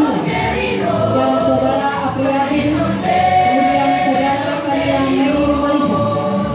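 High-school choir singing, holding long sung notes.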